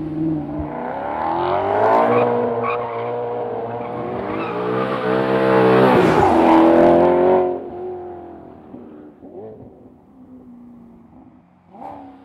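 Maserati GranTurismo MC Stradale's 4.7-litre V8 pulling hard, its note climbing and dipping through gear changes and growing loudest about six to seven seconds in. It then drops off sharply and fades to a faint engine sound, with a short sharp sound near the end.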